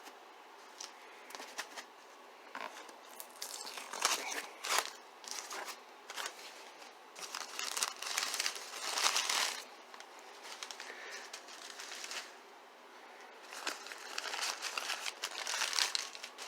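Packing material crinkling and rustling in irregular bursts, with scattered clicks and taps, as a shipping box is opened and unpacked.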